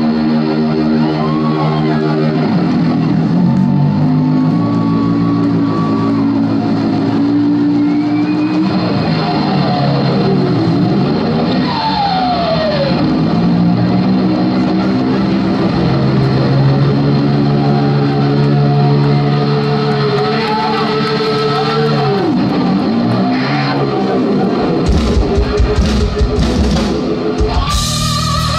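Live rock band music led by a distorted electric guitar holding long sustained notes with string bends, including a long downward bend about twelve seconds in, over bass guitar.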